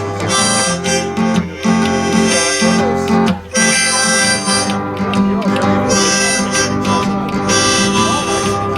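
Instrumental break in a country song: acoustic guitar strumming with harmonica.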